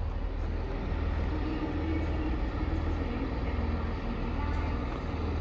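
Steady low rumble of an idling diesel train's engine, with faint station background noise over it.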